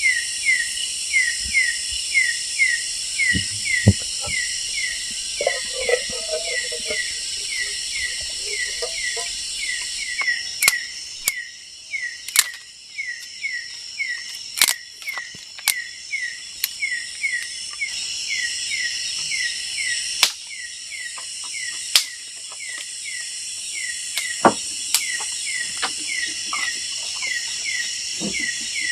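Night-time forest insect chorus: a steady high-pitched buzz with a short falling chirp repeating about twice a second, broken by scattered sharp clicks and knocks.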